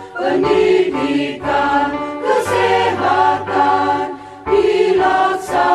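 A song about the school health programme (UKS) sung in Indonesian by a group of voices, slow held notes over a steady bass accompaniment, with the words "pendidikan" and "kesehatan" sung.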